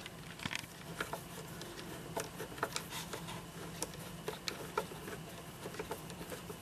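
Small irregular clicks and taps of a screwdriver and screws as a cuckoo clock movement is screwed into its case, over a steady low hum.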